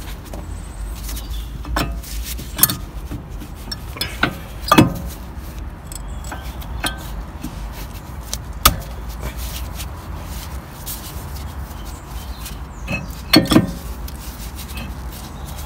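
Metal clinks and knocks of a VW Polo 6R's front brake caliper and new pads being worked and tucked into place, a few sharp knocks at irregular intervals with a pair close together near the end, over a low steady rumble.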